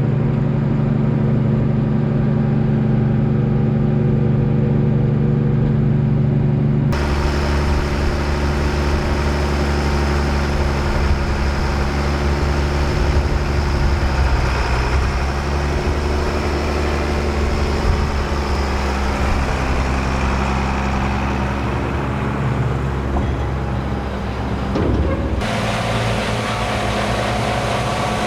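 Diesel engines of heavy farm machinery running steadily, a deep drone with mechanical hiss. The sound changes abruptly about seven seconds in and again near the end.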